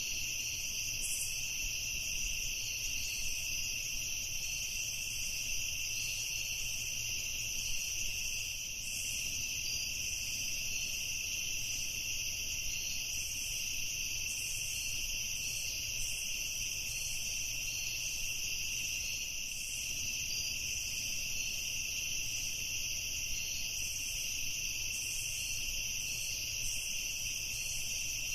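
Evening chorus of crickets trilling steadily and continuously, with a faint low hum underneath.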